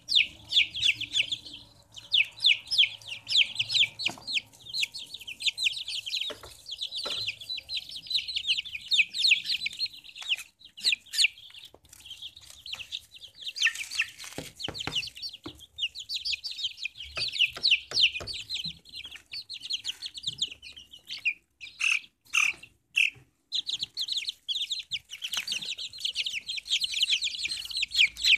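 A group of young chicks peeping: many short, high peeps overlapping almost without a break, thinning briefly a little past the middle, with a few sharp clicks among them.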